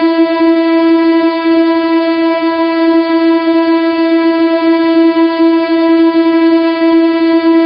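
The 'Too Much Testosterone' meme sound effect: a single loud tone held at one unchanging pitch without a break.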